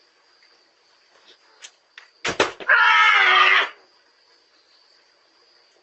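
A couple of sharp thuds as a woman falls, then one loud, high cry lasting about a second, picked up by a Ring doorbell camera's microphone.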